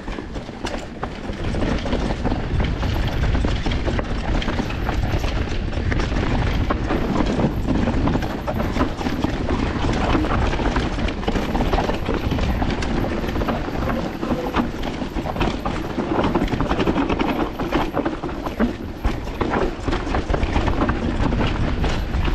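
Mountain bike riding down a rough trail: continuous tyre rumble, rattling and clicking of the bike, with wind buffeting the microphone.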